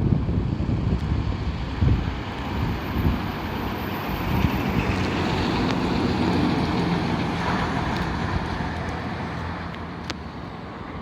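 Vintage bus engine running with a steady low note. It grows a little louder mid-way, then fades toward the end, as if the bus is moving past or away.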